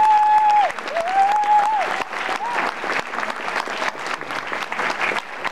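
Audience applauding. Two long, high-pitched calls ring out over the clapping in the first two seconds.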